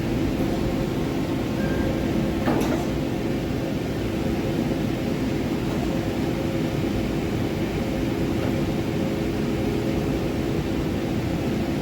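Forest-Line MajorMill CNC gantry mill running under power: a steady machine hum with a few constant tones, and one short sharp clack about two and a half seconds in.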